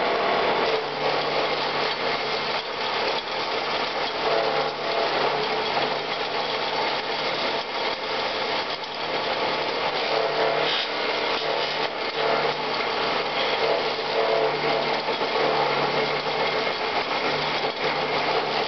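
Homemade branch chopper built from a wood planer, its electric motor (about 2 kW) belt-driving leaf-spring-steel knives, running steadily while thin leafy twigs are fed in and shredded. It makes a dense, continuous shredding noise with frequent small cracks as the stems are cut, and a low hum that rises and falls with the load.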